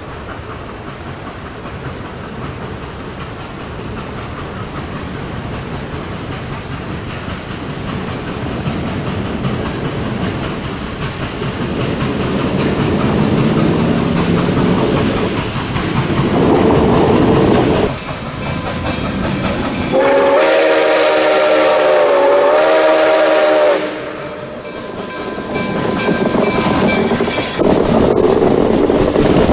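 Nickel Plate Road Berkshire steam locomotive NKP 765 approaching under steam, its exhaust growing steadily louder. About two-thirds of the way through it blows its steam whistle in one long blast of about four seconds. It then rolls past close by, its wheels clattering over the rails.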